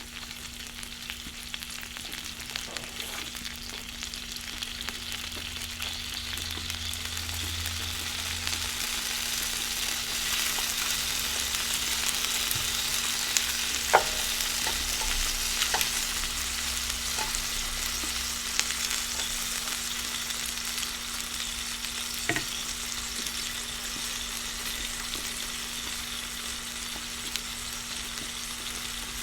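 Food frying in hot oil, sizzling steadily and growing louder toward the middle, with a few sharp clicks.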